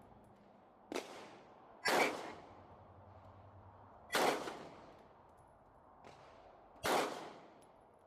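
Smith & Wesson M&P Shield Plus pistol fired slowly, four shots one to nearly three seconds apart, each a sharp crack with a short ringing tail.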